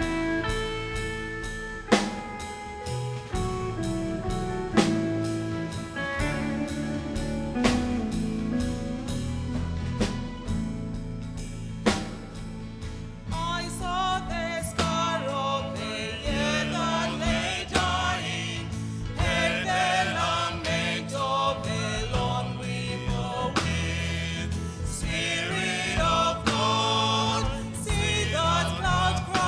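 Gospel choir singing with band accompaniment including drums. The first half is instrumental, and the voices come in about halfway through.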